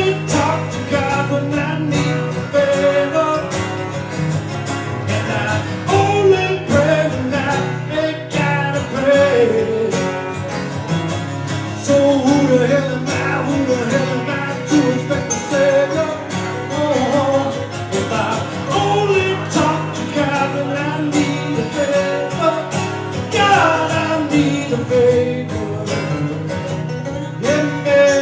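Two acoustic guitars played together while a man sings lead into a microphone.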